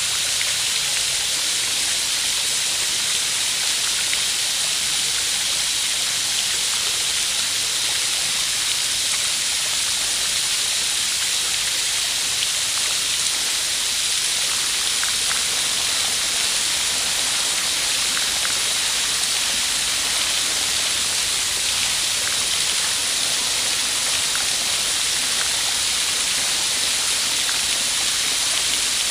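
Steady rush of running, splashing water like a fountain or stream, mostly high-pitched hiss with faint droplet ticks, unchanging throughout.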